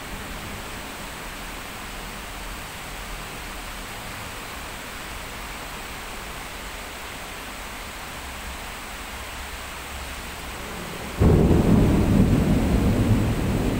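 Heavy rain hissing steadily; about eleven seconds in, a sudden loud rumble of thunder breaks in and keeps rolling.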